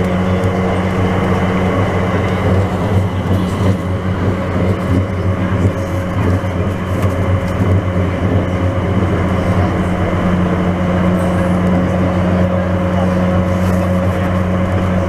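Driverless airport people mover heard from inside the car while it runs steadily through its tunnel: a continuous low drive hum with rolling noise from the wheels on the guideway.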